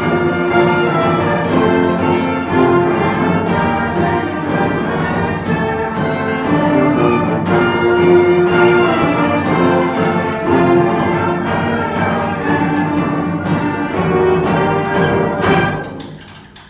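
High school concert band playing, woodwinds and brass in full sustained chords. The sound drops away sharply near the end.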